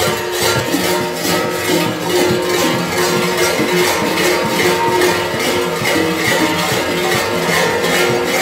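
A cluster of large kukeri bells (hlopki) clanging in a steady swinging rhythm, about two to three strokes a second, their ringing tones overlapping.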